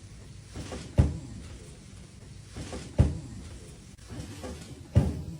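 Three sharp thuds about two seconds apart from Y-strap chiropractic traction pulls jerking the body along the table. Each thud comes just after a brief rush of noise.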